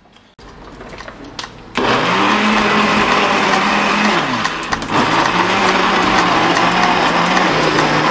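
Electric kitchen blender switched on about two seconds in and running steadily, its motor pitch dipping briefly midway as it loads.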